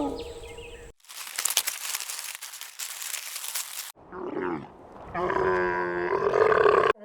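Tiger sound clips: a harsh, noisy rasp for about three seconds, then after a brief break a rattling, growling roar.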